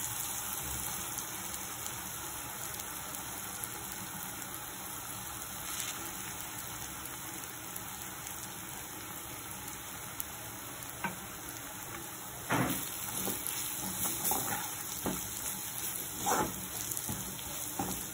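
Onion-tomato masala sizzling in oil in a kadai, a steady hiss. From about twelve seconds in, a perforated metal ladle scrapes and knocks against the pan in short strokes as spice powders are stirred into the masala.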